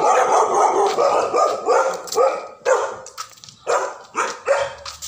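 Dog barking repeatedly: a quick run of barks, then single barks about every half second.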